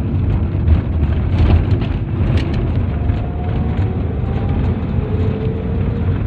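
Nissan NV350 van on the move: a steady low rumble of engine and road noise, with faint thin tones above it.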